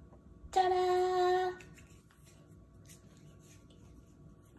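A person hums one steady note for about a second. Faint small rustles and handling sounds follow.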